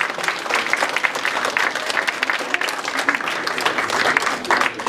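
Audience applauding at the end of an a cappella song: dense, steady clapping from many hands.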